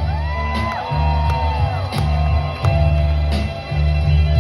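Live band music played loud through a concert sound system. A heavy bass line changes note every half second or so under a high held melody line that slides up and down in pitch.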